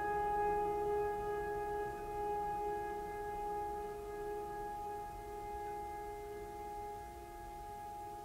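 Background music: a held, droning chord of steady tones that slowly fades.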